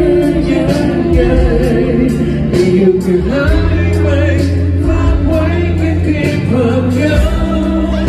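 Male singer singing live into a handheld microphone over a band backing with a steady bass line and drum beat, heard through the PA.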